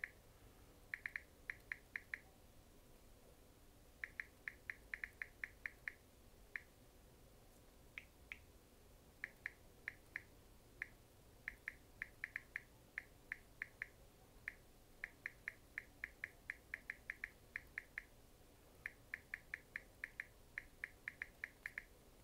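Smartphone on-screen keyboard click sounds while a text message is typed: short, high ticks in quick runs of several taps with pauses between the runs.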